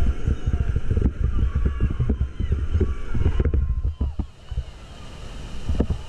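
Whitewater rapid rushing and splashing around an inflatable raft as it runs into the waves, heard as heavy rumbling buffeting on the action camera's microphone. It drops back briefly a little past the middle before building again near the end.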